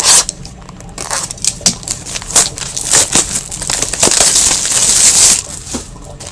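Plastic wrapping of hockey card packs crinkling and tearing as they are opened by hand, with crackles throughout and a louder stretch of crinkling in the middle.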